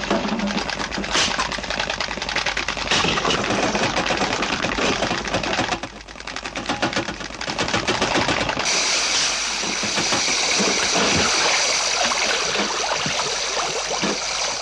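Rapid mechanical rattling clatter, many strokes a second, dipping briefly about six seconds in. From about nine seconds a steady hiss joins it, with scattered low knocks.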